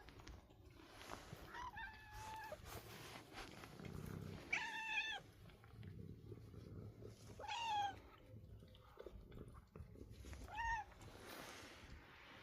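A cat meowing four times, short calls about three seconds apart, the first a little drawn out.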